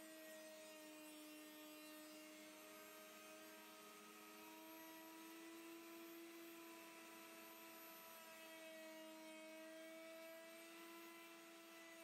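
Handheld plunge router with a wide bit, about 4 cm across, set to a reduced speed, cutting into wood. It makes a faint steady motor whine whose pitch sags and recovers slightly as the load on the bit changes.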